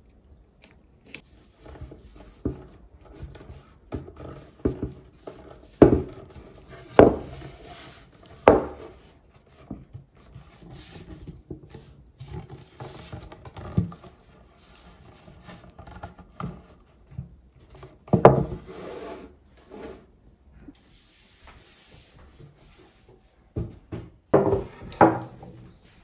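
Hands working a sheet of watercolour paper over a wooden panel: irregular paper rustling and rubbing, with a few sharper knocks of the panel against the tabletop.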